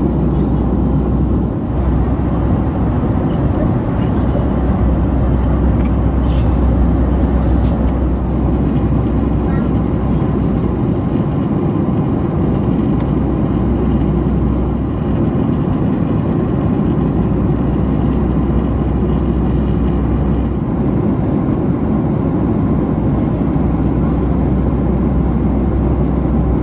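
Steady cabin noise of a Boeing 737 MAX at cruise altitude: an even, low rumble of engine and airflow that holds without change.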